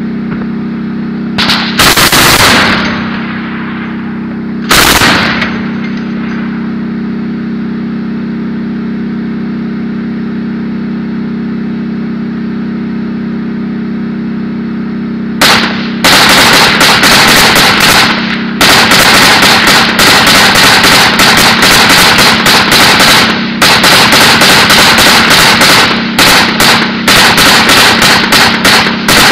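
Close automatic gunfire: two short bursts in the first few seconds, then long, nearly continuous bursts of rapid shots from about halfway through. A steady low drone runs underneath throughout.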